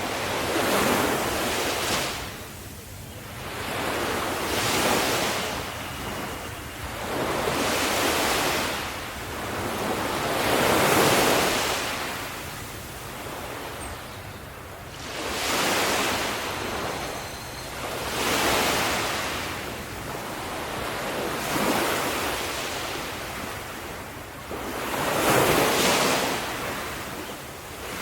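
Sea waves breaking on a shore, each surge swelling and washing back every two to three seconds, about ten in a row.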